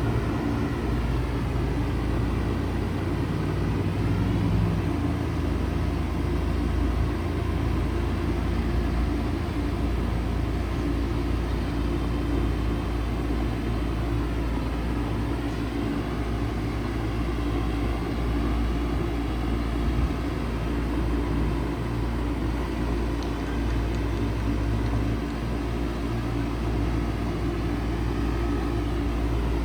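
1995 Bard 3.5-ton wall-hung heat pump running steadily in cooling mode, its compressor and fan making an even low hum and rumble.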